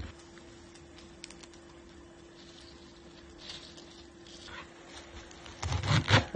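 Chef's knife chopping fresh sorrel on a wooden cutting board: a quick run of sharp chops near the end. Before that, soft rustling and light taps as the leaves are gathered and pressed into a bunch.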